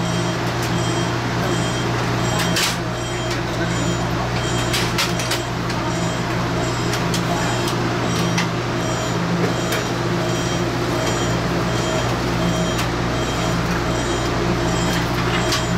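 A steady mechanical hum from a parked passenger train carriage's onboard equipment runs throughout. Scattered sharp clicks and knocks come from plastic tray tables and seatbacks being wiped and handled.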